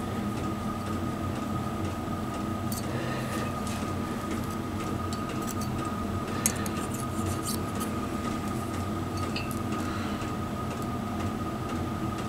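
Faint metallic ticks and scrapes of a feeler gauge blade being worked against a piston ring's end gap in a cylinder bore, one sharper click about six and a half seconds in, over a steady background hum with a thin high whine. The 0.35 mm blade is a tight fit, so the ring gap sits just within its maximum.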